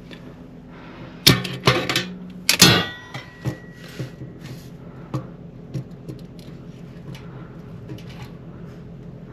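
Sharp metallic clicks and knocks from work on a Gardall floor safe, a cluster of loud ones in the first few seconds, one leaving a brief ringing tone, then fainter scattered clicks over a steady low hum.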